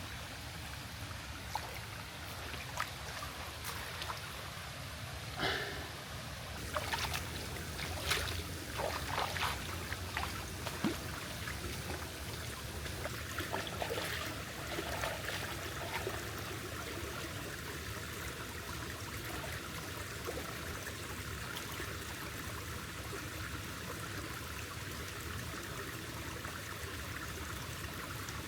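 Steady running water, with scattered light clicks and knocks from about five to sixteen seconds in.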